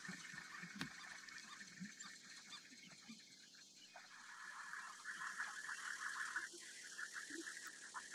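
Faint outdoor nature ambience: a dense chorus of high chirping that thins out about three seconds in and builds back up after about five seconds, with a few soft low sounds underneath.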